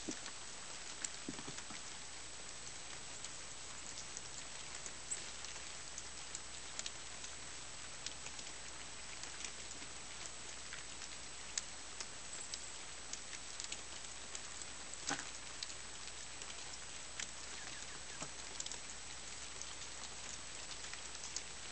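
Freezing rain falling on ice-glazed trees and ground: a steady fine hiss with many small scattered ticks and patters.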